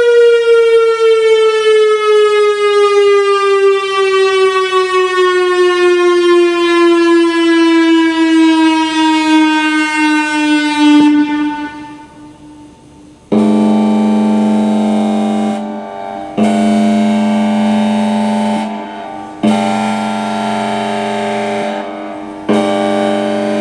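Whelen WPS-3000 electronic outdoor warning siren: one long tone slides steadily down in pitch and cuts off about eleven seconds in. After a short pause it sounds a horn-like chord of several steady tones in repeated blasts of two to three seconds, with short breaks between them.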